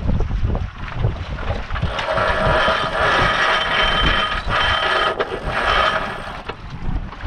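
Sailboat winch ratcheting in a fast buzzing whirr for about four seconds from two seconds in, with a short break partway, over steady wind and water noise.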